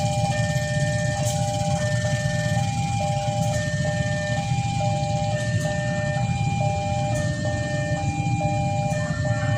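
Railway level-crossing warning alarm sounding a repeating pattern: two tones alternating, with a higher beep about every second and a half. A steady low rumble runs underneath.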